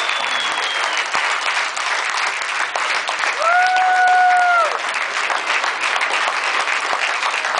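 Crowd applauding, a dense steady clatter of many hands clapping, with one long held high note rising over it about halfway through.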